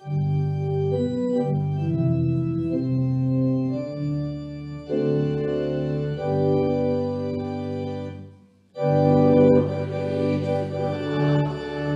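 Organ playing slow, sustained chords that change step by step, with a brief break about eight and a half seconds in before the next phrase begins.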